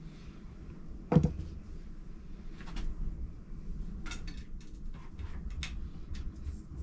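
Workshop handling noises from working on a bicycle's handlebar and stem: one sharp knock about a second in, then a string of light clicks and taps.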